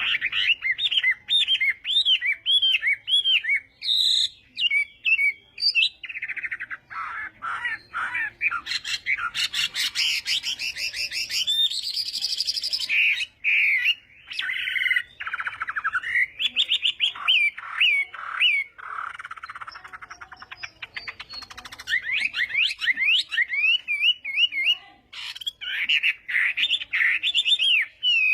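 Chinese hwamei singing a long, loud, varied song of rapid whistled notes, slurred phrases, trills and harsh buzzy passages, with only short pauses.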